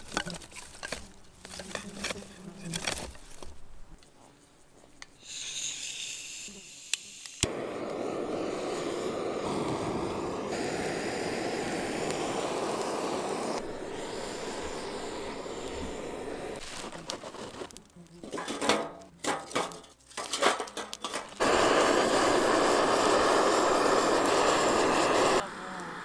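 Dry twigs and kindling being handled and snapped. Then a gas torch lighter clicks on and hisses steadily for several seconds, lighting the kindling. After a few more snaps, a second long burst of hiss comes near the end, cutting off suddenly.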